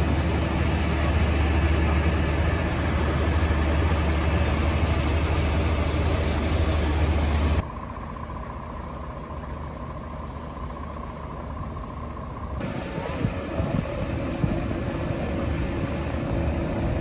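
Fire trucks' diesel engines running close by as a steady low rumble. About eight seconds in, the sound drops abruptly to quieter street ambience, and a few seconds later the engine noise returns with scattered clicks.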